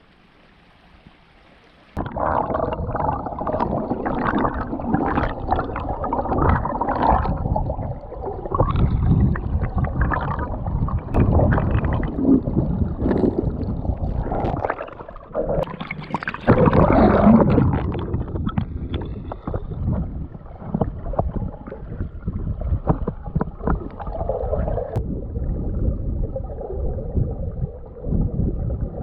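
River water gurgling and sloshing around a camera dipped into the current, muffled and uneven, starting suddenly about two seconds in.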